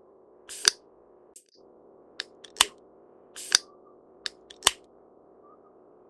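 Male great spotted woodpecker pecking at dead wood: irregular sharp taps, some single and some in quick pairs, over a steady low background hum.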